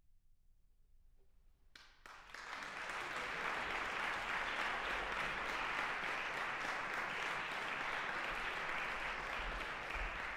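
Near silence for about two seconds, then a concert audience breaks into steady applause.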